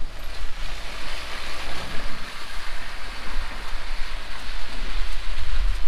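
Lifted 2009 Kia Sportage on 31-inch tyres spinning its wheels through wet grass and mud, a steady rush of churning tyres and flung mud over the low rumble of its engine, which grows louder near the end.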